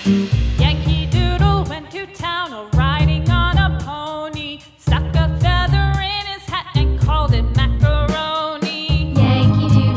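A song with a sung vocal line over a steady beat and bass.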